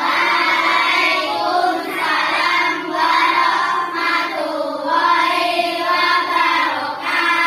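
A class of children chanting together in sing-song unison, many young voices at once, loud and unbroken for about seven seconds.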